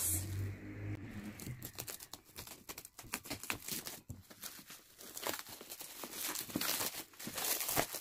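Plastic bubble wrap crinkling and rustling as it is pulled and unwrapped off a boxed kalimba. The crackles come irregularly and grow busier in the last few seconds.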